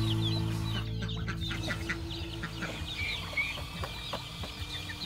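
Farmyard poultry calling: many short, high chirps and peeps, some falling in pitch, with occasional clucks, over a steady low hum that fades out in the first half.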